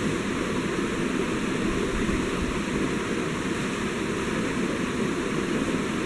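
Steady rushing background noise, even and unbroken.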